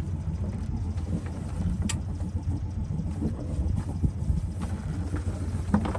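A sailboat's auxiliary engine running steadily at low revs, a continuous low drone, with a brief sharp click about two seconds in.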